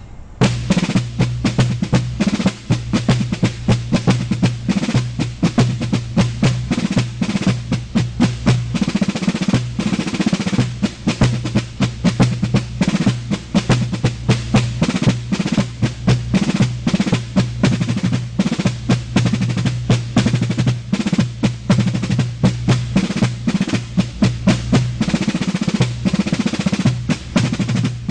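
Music track of a rapid snare drum cadence with rolls, the strokes dense and even, over a steady low tone.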